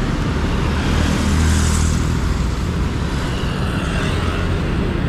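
Road traffic at a busy city intersection: cars and motorbikes passing, with a steady engine and tyre rumble. It swells as a vehicle passes close, about a second and a half in.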